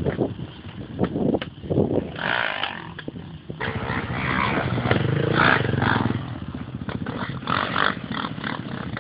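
Off-road motorcycles revving and running unevenly as they ride a steep dirt slope, the engine note swelling and falling, with short bumps and rustles close to the microphone.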